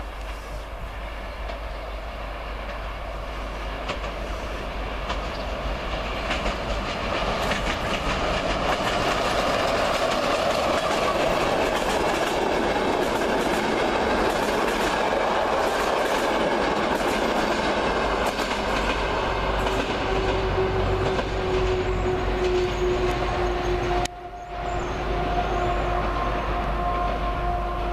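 Passenger train passing through a station. Its rumble and wheel clatter over the rail joints build as it approaches, stay loud while the coaches roll past, and ease off a little near the end. A steady high whine joins in over the second half.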